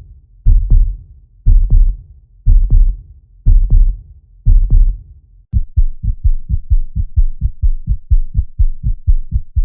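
Heartbeat sound effect: slow, deep lub-dub double beats once a second, then, about five and a half seconds in, faster single beats at about four a second.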